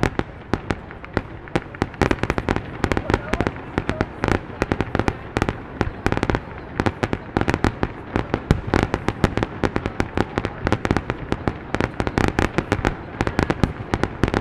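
Fireworks bursting in a dense, rapid barrage of sharp bangs and crackles, several a second, getting thicker after the first couple of seconds.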